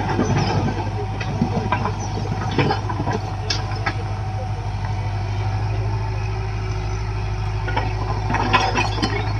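Diesel engine of a JCB 3DX backhoe loader running steadily at a low, even hum, with scattered short knocks and clatters over it.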